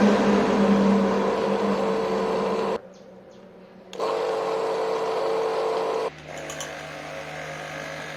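Electric mini pressure washer motor running with a steady hum, stopping abruptly about three seconds in, starting again a second later and stopping again about six seconds in. A quieter, lower hum carries on after it stops.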